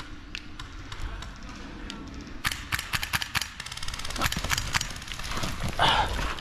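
Airsoft guns firing: a few scattered single clicks, then from about two and a half seconds in, rapid full-auto bursts of sharp clicks.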